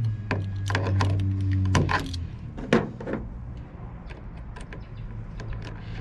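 Small metal clicks, taps and scrapes of a screwdriver and locking pliers working a screw and nut on a truck's fuel door, the sharpest knock a little under three seconds in. A steady low hum runs underneath and weakens about two seconds in.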